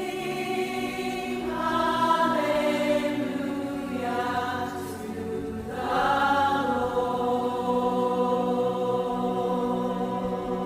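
Choir singing slow chords in long held notes, swelling about two seconds in and again about six seconds in.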